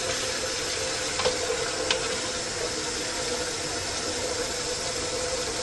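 Steady hiss of water running from the shower into the sewer line, over a constant machine hum, with two faint clicks early on.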